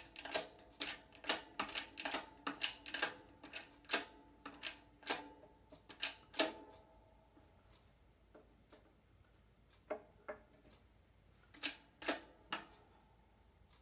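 Hydraulic bottle-jack shop press being pumped while it presses universal joint caps into a drive shaft yoke: sharp metallic clicks, about two to three a second for the first half, then a few scattered ones, each with a short metallic ring.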